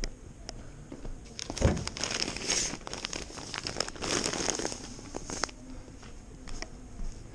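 A thump, then the crinkling and rustling of a sack of sugar being gripped and lifted off a truck bed, for about four seconds, with footsteps before and after.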